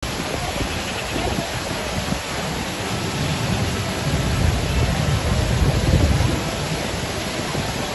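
Wind buffeting the microphone with a gusty low rumble, swelling about halfway through, over a steady outdoor hubbub from a large crowd.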